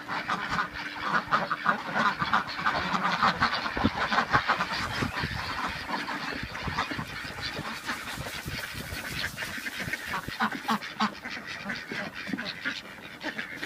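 A flock of domestic ducks quacking in a dense, rapid, continuous chatter as they crowd in to be fed grain.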